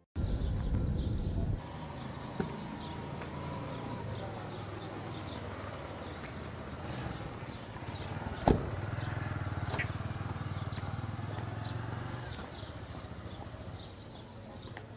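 A car door slammed shut once, a single sharp thump about eight and a half seconds in, over steady outdoor street background noise.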